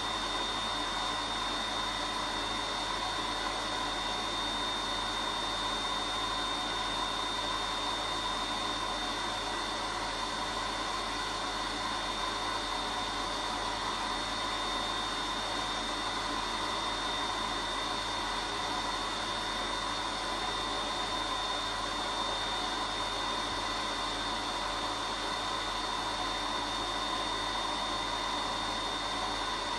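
Vacuum cleaner running steadily: an even rush of air with a constant high whine that neither rises nor falls.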